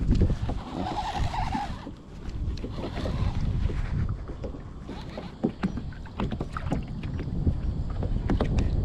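Wind buffeting the microphone over small waves slapping the kayak hull, with scattered knocks and clicks of rod, reel and gear being handled.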